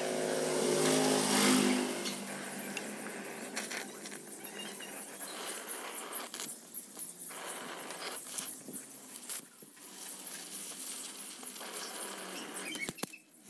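Background music fades out in the first two seconds; after that a brazing torch hisses steadily as it heats the metal lamp, with scattered small crackles.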